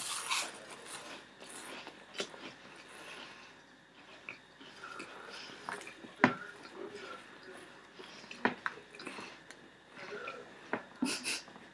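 People chewing and crunching mouthfuls of dry Weetabix, with breathing and a couple of sharp knocks, the loudest about six seconds in.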